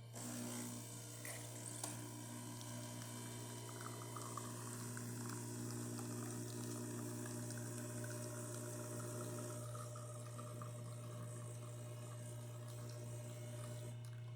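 DeLonghi Magnifica espresso machine brewing a shot: its pump starts abruptly and runs with a steady hum while hot water is pushed through the coffee and espresso flows into the cup, easing off near the end.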